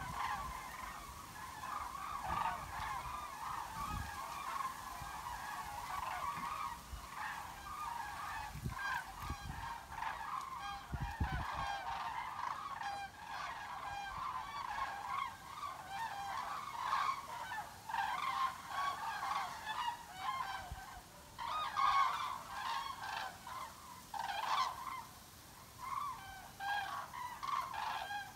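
A large flock of common cranes flying overhead, many birds calling at once in a continuous overlapping chorus. In the second half the chorus thins and single loud calls stand out more clearly.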